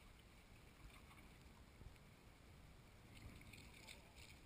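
Near silence: only a faint low rumble and hiss of wind and water around a boat at sea.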